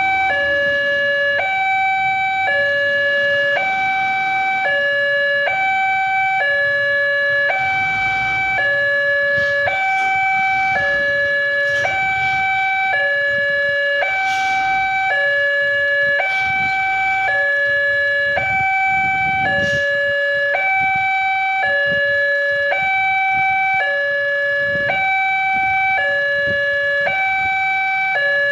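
Railway level-crossing warning loudspeaker sounding its electronic two-tone alarm, a higher and a lower tone taking turns about every 0.7 s in an even, unbroken cycle: the signal that a train is approaching and the barrier is closed.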